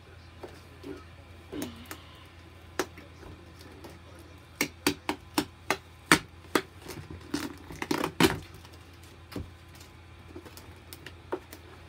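A string of sharp, irregular knocks and taps from a boxed Halloween prop and its packaging being handled and pulled at, bunched together in the middle, over a steady low hum.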